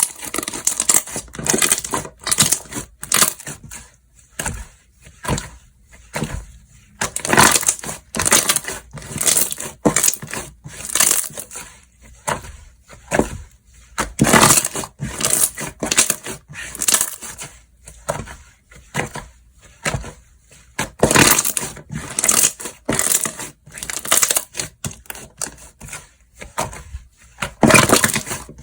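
Slime being squished and pressed by hand, giving bursts of crackling clicks and pops, about one burst every second or two.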